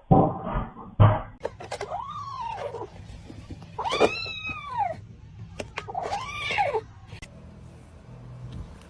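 A cat meowing three times in long, drawn-out meows that rise and then fall in pitch. Two sharp thumps come in the first second or so.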